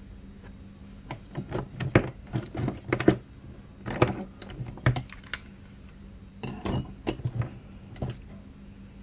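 Irregular clicking and clattering of small carburetor parts and hand tools being handled on a workbench, in three bunches of quick knocks, over a steady low hum.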